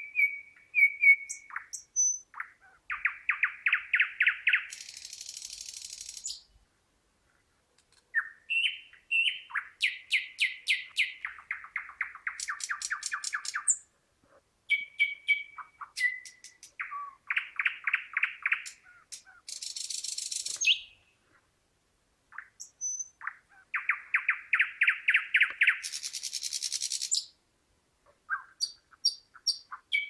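Thrush nightingale singing in phrases of several seconds with short pauses between them. Each phrase strings together sharp ticks, clear whistled notes, fast series of loud repeated notes, and a high buzzing trill.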